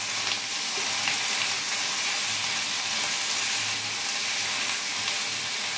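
Paneer cubes, onion and capsicum frying in hot oil in a stainless steel pan, a steady sizzle, with light stirring by a silicone spatula.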